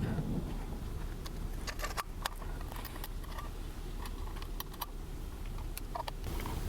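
Scattered light clicks and small rattles of portable ham radio gear being handled while a band module is swapped for 20 meters, over a steady low background rumble.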